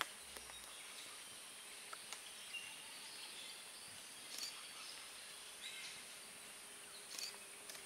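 Faint forest background: a steady high-pitched insect buzz, with a few short high chirps scattered through.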